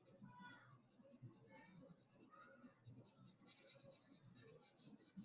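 Faint scratching of a purple felt-tip marker coloring in on paper with quick back-and-forth strokes. The marker is starting to run dry.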